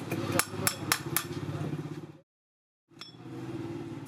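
Steel tools knocking and scraping on a freshly sand-cast aluminium motorcycle wheel hub: about five sharp metallic clinks in the first second or so, over a steady low drone. The sound cuts out for about half a second just after two seconds in.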